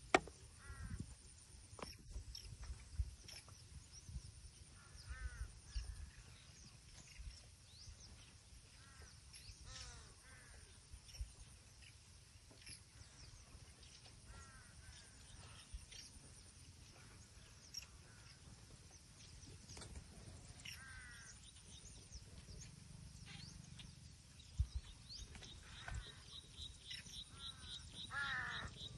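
Birds giving short repeated calls over a steady high insect drone, with a pulsing insect buzz joining near the end. A low rumble and a few soft thumps sit underneath.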